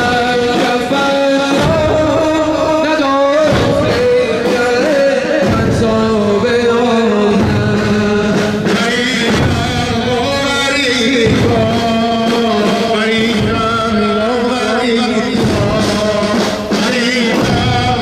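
A man singing a Muharram mourning lament (noha) in a Middle Eastern melodic style, with long wavering held notes over a regular beat.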